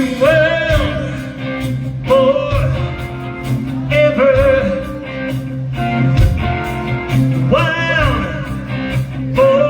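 Live rock band playing during a sound check: a singer's phrases over guitar, bass and a steady drum beat.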